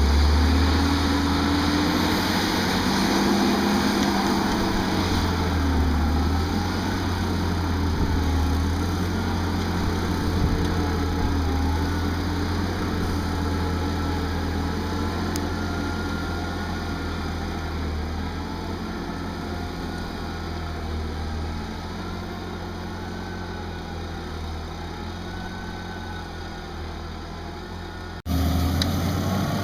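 Fendt 936 tractor's diesel engine running steadily while pulling a seven-furrow plough. It fades gradually as the tractor moves away, then jumps back loud after an abrupt cut near the end.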